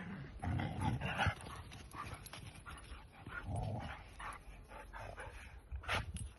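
Several dogs vocalizing in short, irregular bursts as they play and chase each other, with one sharper sound about six seconds in.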